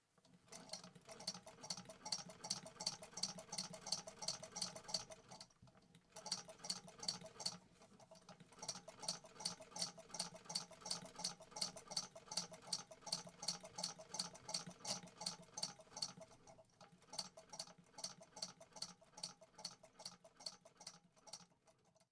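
Gritzner VS-R sewing machine running and stitching, ticking about four times a second over a low hum, pausing briefly a few times.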